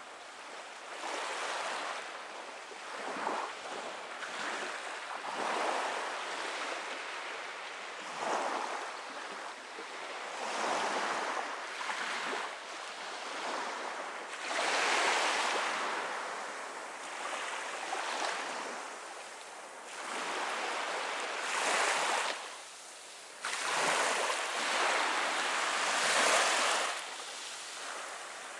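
Small waves washing in on a sandy beach: a hiss that swells and falls away every one to three seconds.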